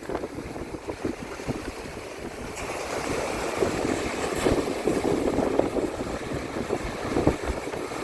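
Strong wind buffeting the microphone in gusts, over the wash of waves breaking on the shore; the surf hiss grows louder about two and a half seconds in.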